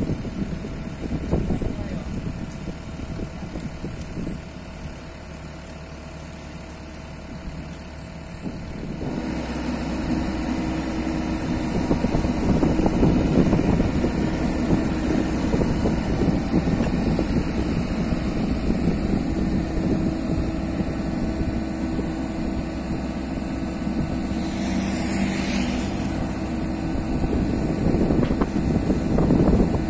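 Komatsu PC78US mini excavator's diesel engine running, quieter at first and then rising to a louder, deeper working note about nine seconds in as the boom digs and lifts soil. A brief hiss comes about 25 seconds in.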